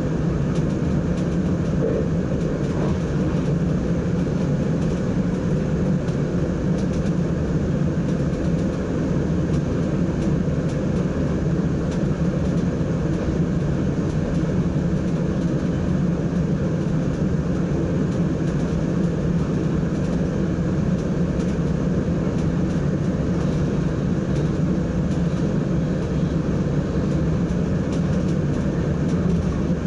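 Steady running noise inside the driver's cab of an NS ICM (Koploper) electric multiple unit travelling at speed: an even drone, strongest in its low hum, with no changes.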